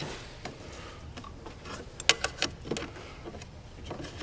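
Small metal clicks and taps as the retaining pin is worked into the latch of a snowmobile's aluminium clutch cover, with a cluster of sharper clicks about two seconds in.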